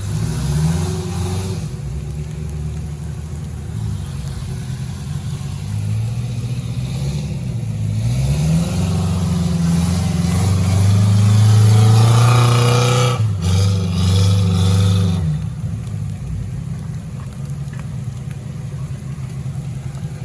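Small off-road 4x4's engine revving hard under load as it works through an obstacle, the revs rising and falling several times. It is loudest at a high rev held in the middle, cuts off sharply, revs once more, then drops back to a steady idle for the last few seconds.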